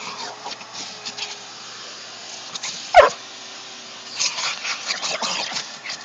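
A dog gives one short, loud yelp about three seconds in, falling in pitch. From about four seconds on comes a run of quick clicks and scrapes as it chews and licks at a rod.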